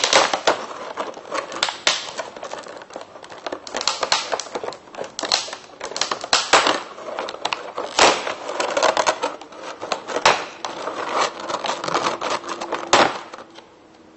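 Stiff clear plastic blister tray being opened and handled: irregular clicking, crackling and crinkling of the plastic, quieter near the end.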